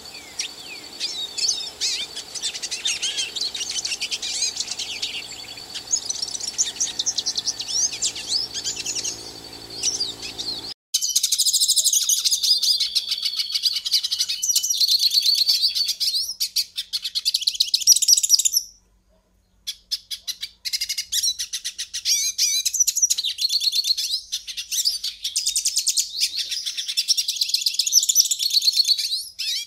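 European goldfinch singing a rapid, continuous twittering song of quick trills and chirps. For the first part a low background hum lies under it. About eleven seconds in it cuts abruptly to a louder, cleaner recording of the same song, which stops for about a second near the middle and then resumes.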